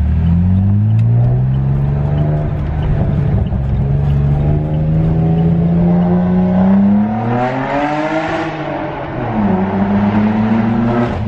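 Saab 9-3 Turbo X's turbocharged 2.8-litre V6 running through a nearly straight-piped exhaust (downpipe and midpipe fitted, rear muffler deleted), heard from inside the cabin while driving. The exhaust note climbs steadily in pitch as the car accelerates and swells with a rushing noise about eight seconds in. It then drops in pitch and settles into a steady drone near the end.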